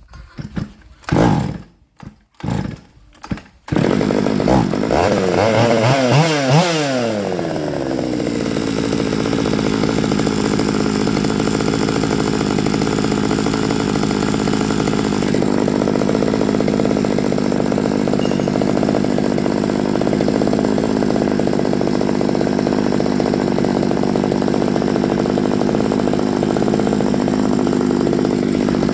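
Stihl MS200T two-stroke chainsaw engine running: it stutters in several short bursts over the first few seconds, catches, revs up and falls back, then settles into a steady idle.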